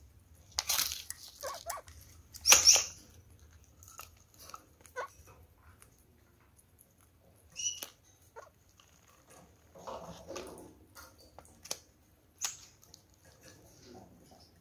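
Red-crowned kakariki pecking at grated carrot in a plastic dish and scuffing through seed husks on the cage floor: irregular clicks and rustles, loudest in the first three seconds.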